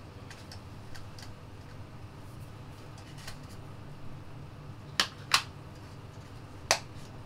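Sony WF-1000XM4 earbuds being handled and set into their plastic charging case: faint taps, then two sharp clicks in quick succession about five seconds in and another single click near the end, as the earbuds snap into place.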